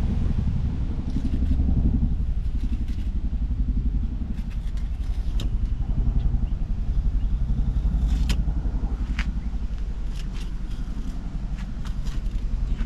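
Knife cutting and scraping along a Spanish mackerel as it is filleted, a scatter of short crackling clicks, over a loud steady low rumble.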